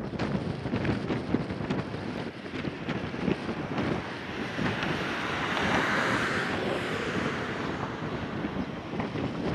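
Wind buffeting the microphone, with the distant noise of a locomotive-hauled train approaching on the rails that swells to a hiss about halfway through.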